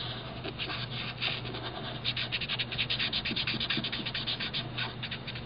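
Felt-tip marker scratching across paper in quick, repeated colouring strokes, thickest from about two seconds in.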